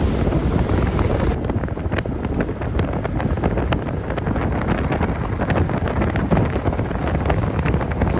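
Strong wind buffeting the microphone: a loud, rough rumble full of crackles.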